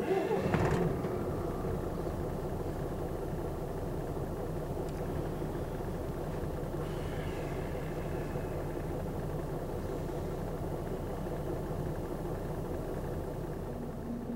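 Coach bus engine running steadily, heard from inside the passenger cabin; it comes in suddenly at the start and holds an even low hum and rumble.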